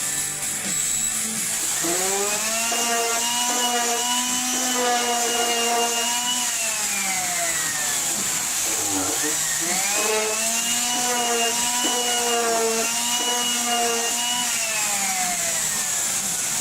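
A corded woodworking power tool's electric motor whining as it spins up quickly, runs steadily for about five seconds and slowly winds down, twice over.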